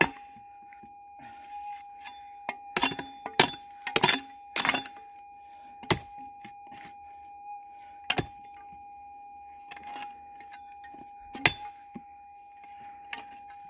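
Hand pick chopping into clayey, stony ground to dig out a detector target, with about a dozen sharp clinks at uneven intervals, several in quick pairs. A faint steady tone runs underneath.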